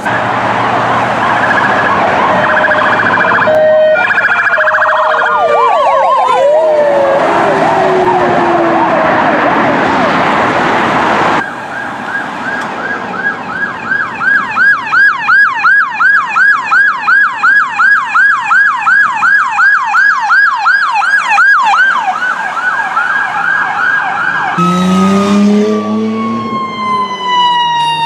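Emergency vehicle sirens in three clips. For the first ten seconds or so, several siren tones sound together, and one winds down in pitch. After a cut comes a police car's siren on a fast, even yelp, rising and falling a few times a second. Near the end a fire engine's siren falls slowly in pitch, with a low horn blast.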